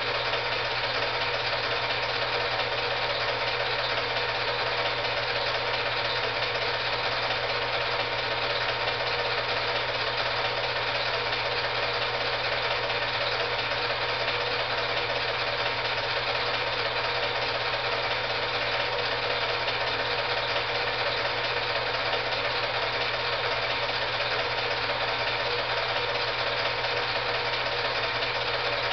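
Steady mechanical whir of a film projector running, with an even hiss and a constant low hum, unchanging throughout. It is the sound of the old silent film being played back, not of the lifting: the barbell drop makes no sound.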